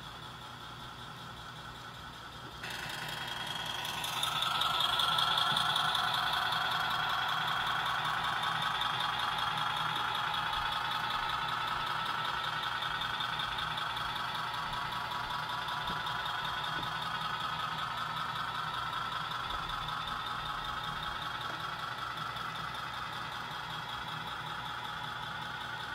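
Model diesel locomotive, a Kansas City Southern ES44, running with its train of covered hoppers: a steady engine-like running sound. It jumps up about two and a half seconds in, grows louder as the locomotive comes close, then slowly fades as the train passes.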